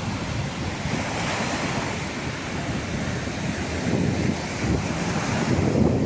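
Sea surf washing onto a beach in slow, repeated swells of hiss, with wind buffeting the microphone.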